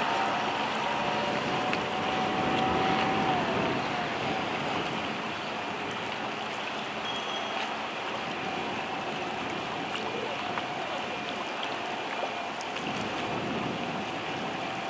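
Small boat's outboard motor droning steadily at a distance, its pitch dipping about three and a half seconds in, over a steady hiss of wind and choppy water.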